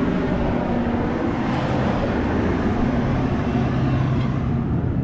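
Semi-truck diesel engine running steadily at idle, a low even hum with no change in speed.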